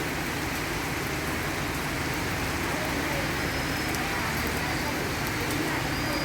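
Steady rain falling and pattering on surfaces: an even hiss at a constant level.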